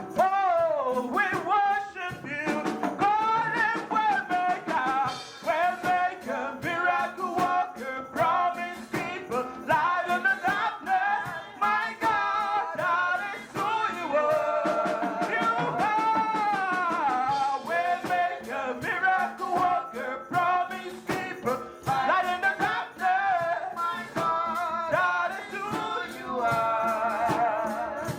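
Church worship song: a voice singing a melody over a live band with a steady drum beat.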